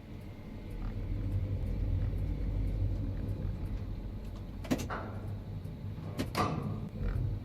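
Low, steady rumble of a Liebherr 112 EC-B tower crane heard from inside its operator's cab. Two sharp knocks come about a second and a half apart, past the middle.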